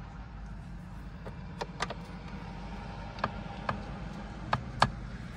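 Sharp clicks of metal hand tools, mostly in pairs, three times, as a ratchet and sockets are handled while a smaller socket is found. A steady low hum sits underneath.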